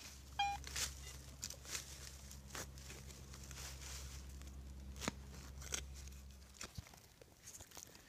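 Hand digging in soil and leaf litter: scattered crunches, scrapes and clicks over a low steady hum that stops near the end. One short metal detector beep just after the start.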